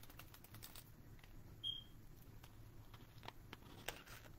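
Near silence: quiet room tone with faint scattered ticks and light handling noise from a picture book being held open. A single short high squeak sounds about a second and a half in.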